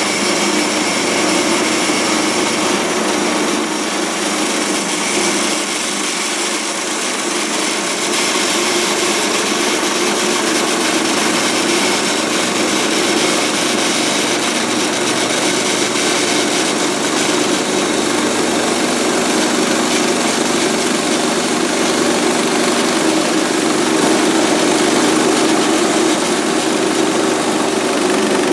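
Gasoline engine of a Harbor Freight portable bandsaw sawmill running steadily at speed while its band blade cuts along a log as the saw head is pushed through by hand.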